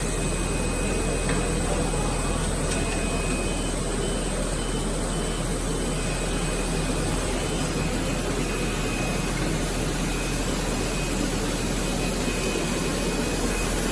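Spiral-wound hose extrusion machinery running: a steady mechanical hiss and drone with a faint high whine over it.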